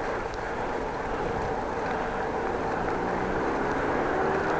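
Steady wind and road noise of a bicycle ride, picked up by a chest-mounted action camera. About halfway through, a low drone comes in and rises slightly in pitch.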